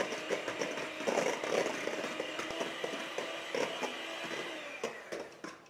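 Electric hand mixer running, its beaters whipping egg whites into meringue in a stainless steel bowl, with scattered clicks. The meringue is at the stiff-peak stage. The mixer winds down and stops near the end.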